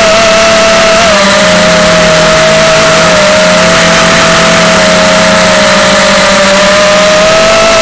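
Quadcopter's brushless motors and propellers whining in flight: a steady high whine that dips slightly in pitch about a second in and climbs back near the end.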